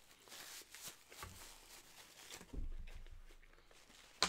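Faint biting and chewing of a breaded chicken club sandwich held in its paper wrapper, with small crackles for the first couple of seconds, then soft, low chewing sounds and a single sharp click near the end.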